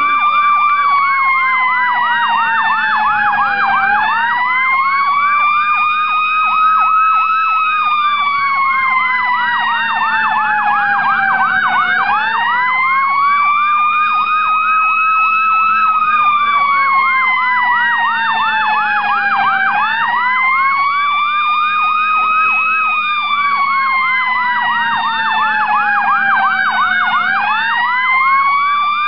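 Sirens sounding continuously: a slow wail rising and falling about every eight seconds over a fast, rapidly repeating warble, with a steady low hum beneath. This is typical of the warning sirens sounded before a demolition blast.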